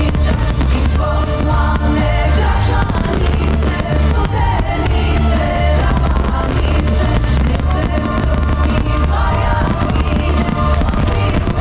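A fireworks display, with many shells bursting and crackling over loud music that has a heavy bass.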